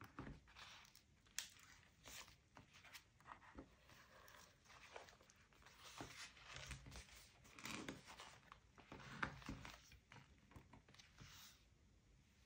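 Paper and stationery being handled for a journal: an irregular run of short rustles, scrapes and tearing sounds with a few sharp taps, dying away near the end.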